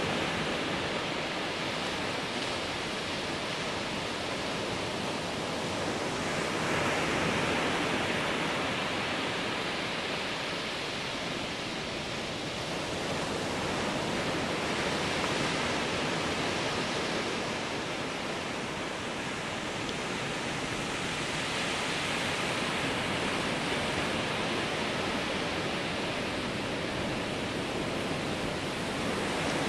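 Ocean surf breaking on a sandy beach: a steady wash of noise that swells gently every several seconds as waves come in.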